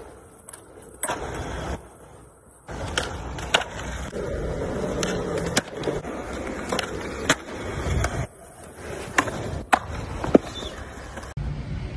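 Skateboard wheels rolling on concrete, with a series of sharp wooden clacks from the board's tail popping and the deck landing, repeated across several separate tries. The background changes abruptly a few times as one clip cuts to the next.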